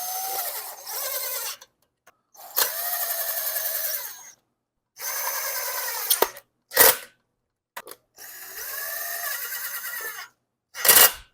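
Power drill driving screws to fasten a recoil starter housing: four runs of a second and a half to two seconds each with pauses between, and two short bursts later on.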